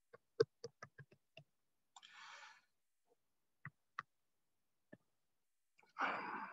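Pen tip tapping and clicking against a writing tablet during handwriting: a string of short, sharp clicks, with a brief soft scratchy noise about two seconds in. Near the end there is a louder, short rushing noise.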